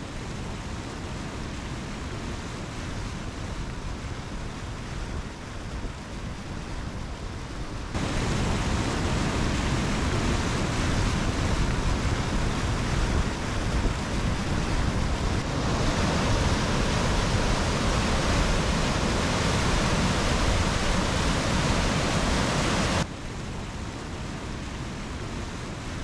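Falls Creek, a high-Sierra mountain creek at peak spring flow, rushing steadily over granite. It steps abruptly louder for most of the middle stretch, then drops back near the end.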